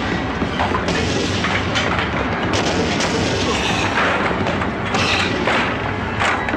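Film sound effects: repeated heavy booming thuds of balls flying and slamming into a man and the caged lockers, over a continuous deep rumble.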